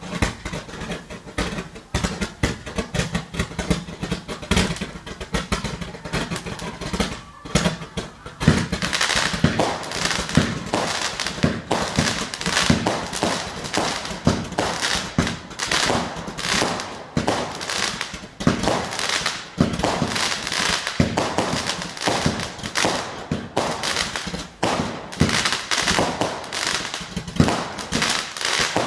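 Fireworks firing in quick succession: rapid bangs and pops as tubes send comets up and stars burst overhead, several a second. The firing gets denser and louder about eight seconds in.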